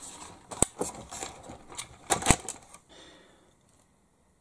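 Scattered clicks and knocks from handling a 1/16 scale RC truck and its parts, the two loudest about two-thirds of a second and about two and a quarter seconds in, dying away after about three seconds.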